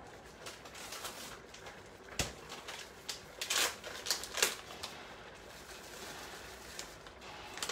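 Rustling and crackling of a bag of grated parmesan being handled and shaken over a pan of spaghetti, with a few sharp rustles in the middle seconds over a low, steady background.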